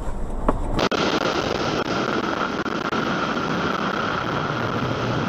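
Motorcycle riding along, heard from an onboard camera: a steady rush of wind and engine noise with a constant whine running through it. It begins after a sudden cut, about a second in, from a car's low in-cabin rumble.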